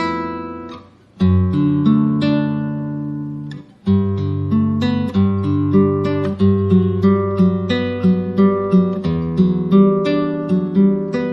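Background music on solo acoustic guitar: chords ring out after two short breaks, then a steady run of picked notes.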